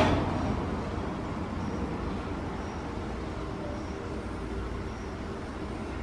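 Steady outdoor background noise with a low rumble, like distant traffic. One sharp knock comes right at the start, and faint short high chirps sound about once a second.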